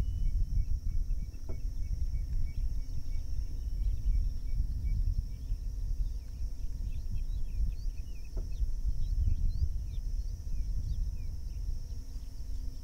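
Open-air field ambience: a low, gusting wind rumble on the microphone under a steady high insect drone, with scattered faint high chirps.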